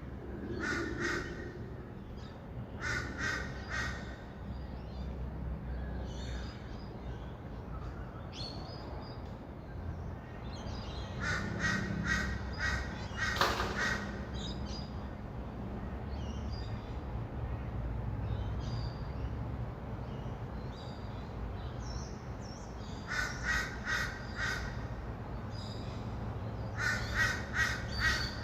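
Birds calling in short bursts of rapid, harsh repeated notes, about five bursts spread across the stretch, with fainter chirps in between. Under them runs a steady low rumble of distant city traffic.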